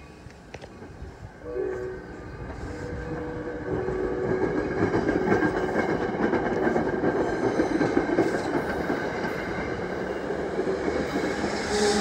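NJ Transit train approaching and passing. Its horn sounds briefly about a second and a half in, then the noise of the train's wheels on the rails grows loud from about four seconds in and stays up.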